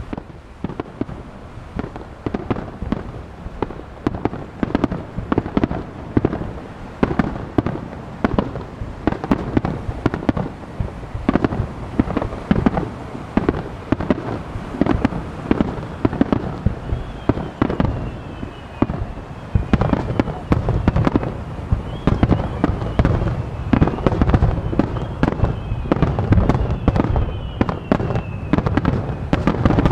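Star mine fireworks barrage: a rapid, dense run of bangs and crackles that grows heavier and louder about two-thirds of the way through, with several falling whistles in the second half.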